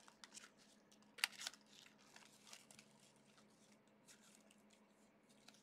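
Faint rustles and light clicks of trading cards and pack wrappers being handled, with a sharper click about a second in.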